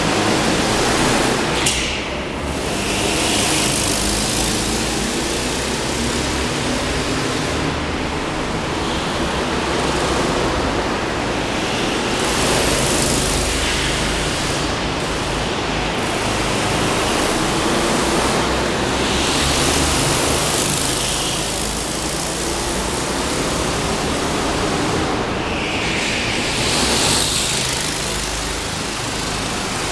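Go-kart engines running around an indoor track, a steady rumble with karts swelling louder as they pass every several seconds, the loudest near the end.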